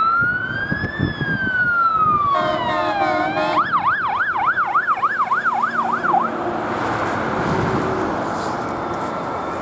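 Electronic siren on a Star/MAN 14.225 fire engine with a Gamet 150N modulator, running on an emergency call. It sounds one slow wail that rises and falls, then a short steady horn-like tone, then a fast yelp of about three cycles a second that cuts off about six seconds in. Truck engine and road traffic noise carry on after it.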